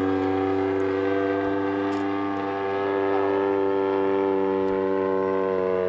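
Engine and propeller of a 110-inch giant-scale RC Spitfire in flight, a loud steady drone holding one pitch.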